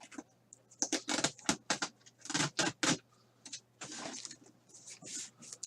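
Trading cards being handled and slid against each other: a string of short, irregular rustling and scraping strokes over a faint steady low hum.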